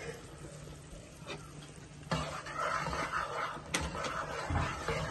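Onions and ground spices frying in oil in a pan while being stirred, with a sharp knock of the spoon against the pan; the sizzle grows louder about two seconds in.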